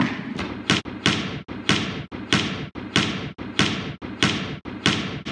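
Basketball dribbled on a hardwood gym floor: a steady run of sharp bounces, roughly every two-thirds of a second with lighter ones in between, echoing in the hall.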